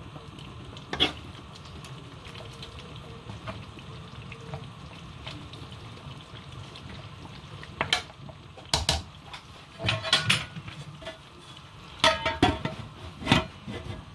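Pot of food cooking on the stove with a steady low bubbling, then a metal spoon or lid clinking and knocking against the pot several times in the second half.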